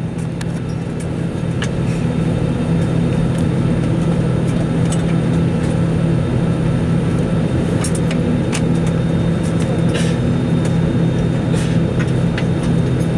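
Steady, loud hum inside an Airbus A320 cabin at the gate, from its air-conditioning and ventilation, with scattered light clicks and knocks.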